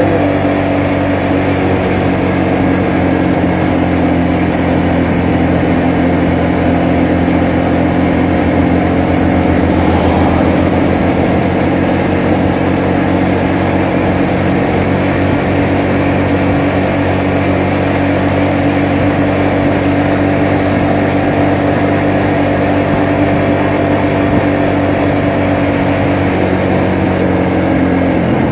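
Motorcycle engine running steadily at riding speed, a constant even hum with road and wind noise.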